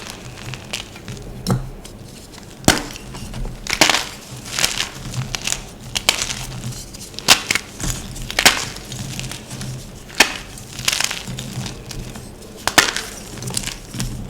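Gym chalk being crushed and crumbled: a string of sharp crunches at uneven intervals, roughly one a second.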